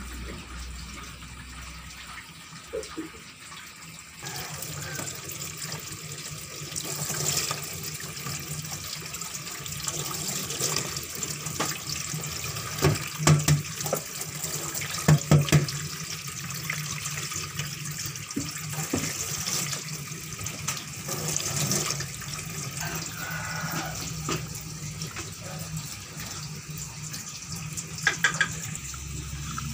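Tap water running into a stainless steel sink as whole fish are rinsed by hand, starting about four seconds in, with a few sharp knocks and clatters of handling along the way.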